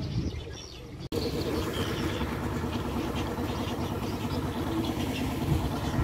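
A small motor, most likely the boat's engine, running steadily at a constant low speed. It comes in abruptly about a second in, after a quieter first second.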